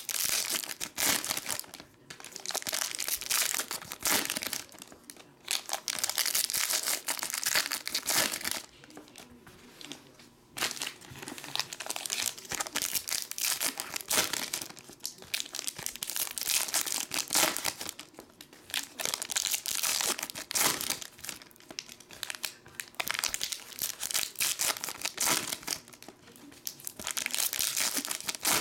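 Foil wrappers of Panini Prestige basketball card packs crinkling and tearing as the packs are ripped open and handled by hand, in irregular bursts with short pauses.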